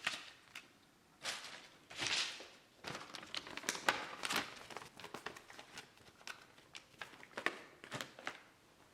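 Handling noises of the tool and its packaging: crinkling and rustling with scattered sharp clicks and taps at irregular intervals.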